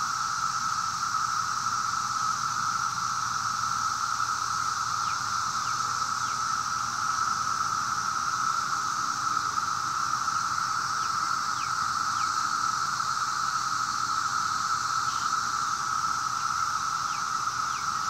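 Chorus of 17-year periodical cicadas: a steady, unbroken drone of many insects calling together.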